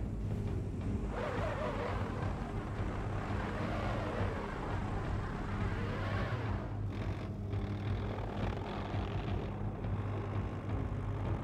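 Van engine running as the van pulls away and drives off, with a steady low drone. A louder rush of engine noise with a rising and falling pitch lasts from about a second in until a little past the middle.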